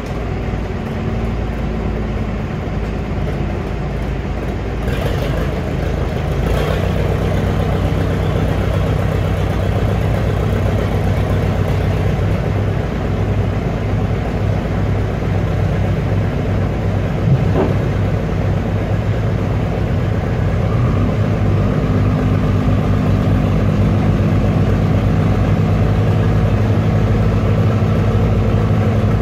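Diesel engine of a crawler loader running steadily under load with a low hum; it gets louder about five seconds in.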